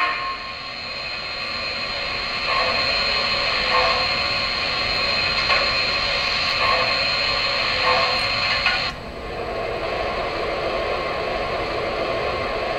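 Onboard sound system of an O-gauge model steam locomotive standing at a station: a steady hiss with brief pulses every second or so, changing character about nine seconds in.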